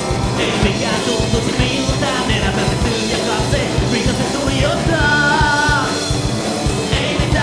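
Live punk rock band playing: electric guitar, bass guitar and drums, with a male singer singing into a microphone.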